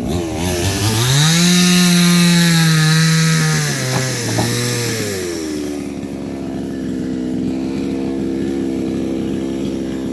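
Two-stroke chainsaw revved up about half a second in, held at high speed for about three seconds, then dropping back to a steady idle.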